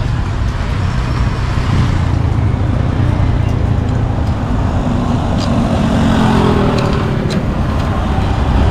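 Steady roadside traffic noise with a continuous low rumble, and a few light clicks in the second half.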